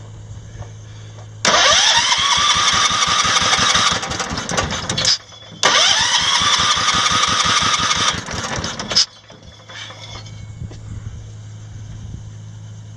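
The Massey Ferguson 1650 garden tractor's 16-horsepower engine being cranked over by its electric starter for a compression test, in two bursts of about three and a half seconds each. Each burst opens with a rising starter whine over an even, rapid pulsing of the compression strokes.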